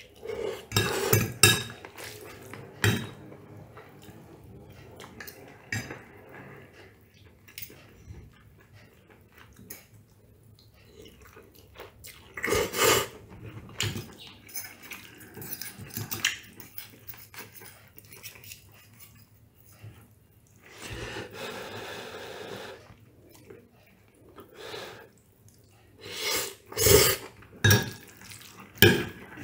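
Metal fork and spoon clinking and scraping against a ceramic plate while spaghetti is twirled, in scattered bursts with quieter gaps between.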